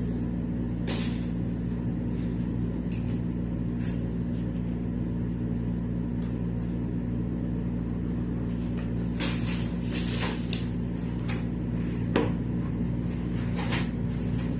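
Steady low machine hum, with scattered knocks and clicks, the busiest stretch about nine to eleven seconds in.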